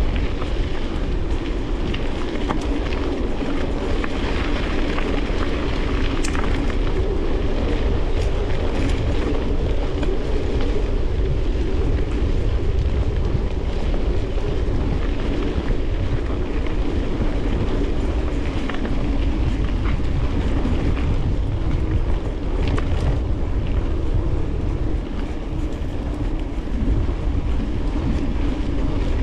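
Mountain bike ridden over a rough woodland trail: tyres rolling on dirt and rock, with frequent rattling clacks from the bike and a steady rumble of wind on the microphone.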